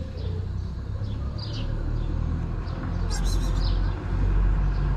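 Steady low outdoor rumble with small birds chirping briefly a few times, and a quick cluster of sharp chirps about three seconds in.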